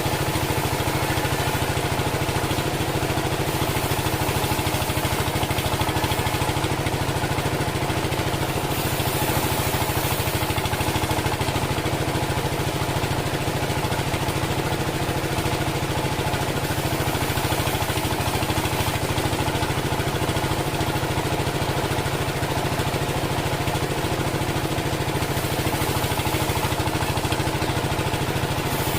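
Engine of a homemade bandsaw sawmill running steadily at constant speed, a flat, unchanging drone.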